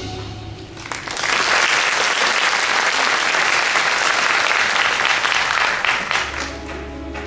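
Audience applause that swells about a second in and dies down near the end, as a new piece of music starts underneath.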